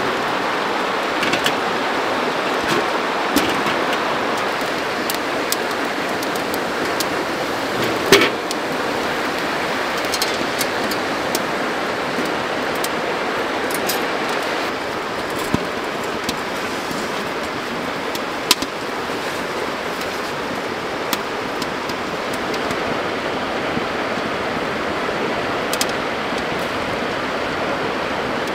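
Steady rush of flowing river water, with a wood fire crackling and popping in a small stove: scattered sharp pops and one louder knock about eight seconds in.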